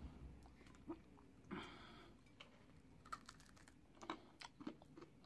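Faint, scattered crunches and clicks of chewing a crunchy oat granola bar (Nature Valley Peanut Butter Crunchy), with a short soft rustle about a second and a half in.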